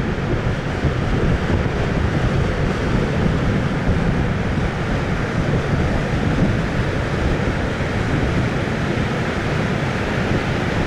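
High storm surf from a passing typhoon's swell breaking along a rocky coast, a steady, heavy rush of noise strongest in the low end, with wind buffeting the microphone.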